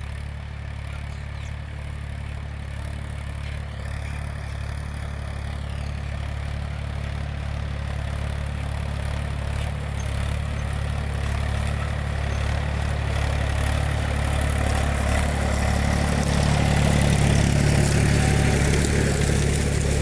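Mahindra 265 DI tractor's three-cylinder diesel engine running steadily as it pulls a cultivator through ploughed soil. The engine grows somewhat louder in the last few seconds.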